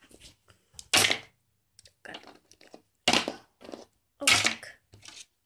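Plastic toy figures and dollhouse pieces handled and knocked together: about five short clacks and rustles, one every second or so.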